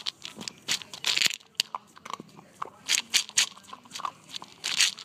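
Close-up crunching and chewing of crunchy food: irregular sharp crunches, several in quick clusters, with a few louder bites near the end.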